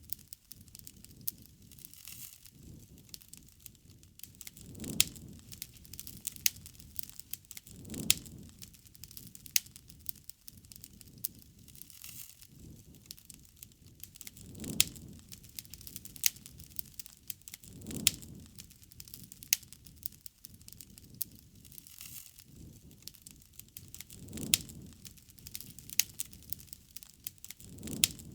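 Wood fire crackling and popping, with frequent sharp snaps and a soft low swell every few seconds.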